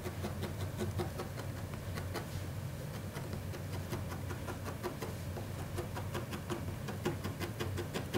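Felting needle jabbing repeatedly into wool on a red panda tail, a quick even run of soft pokes, several a second, over a steady low hum.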